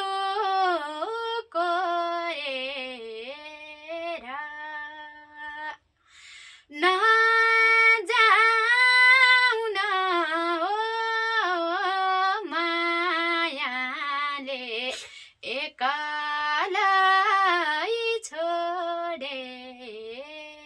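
A woman singing a Nepali folk song solo, with no accompaniment heard, in long, wavering held notes. There is a brief pause for breath about six seconds in.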